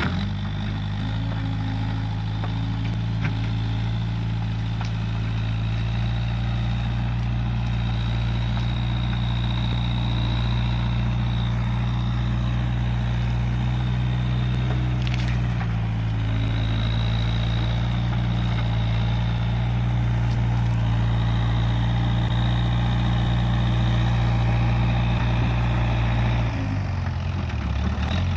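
Case 580G backhoe loader's diesel engine running steadily with a thin high whine over it. Near the end the engine note dips briefly, as if pulled down under load, then picks back up.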